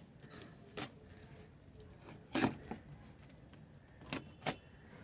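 A cardboard shipping roll holding plant seedlings being opened by hand: about five short rustles and taps of cardboard and tape, the loudest about two and a half seconds in.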